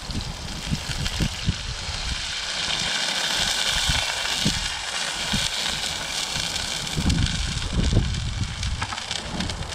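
Water poured from a plastic bottle into a hot wok of sautéed vegetables over a wood fire, hissing and sizzling as it hits the pan. The hiss is strongest in the middle. Low rumbles of wind on the microphone run underneath.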